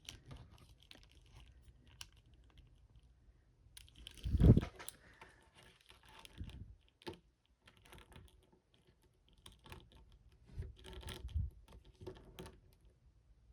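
Plastic action figure being handled and posed: scattered small clicks and rustles of its jointed parts and accessories, with one louder knock about four and a half seconds in.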